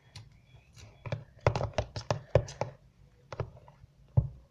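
Slime being mixed: a quick run of short sticky clicks and taps, densest between about one and three seconds in, with a single louder tap near the end.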